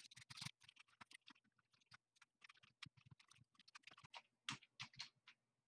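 Faint, rapid keystrokes on a computer keyboard, many short irregular clicks.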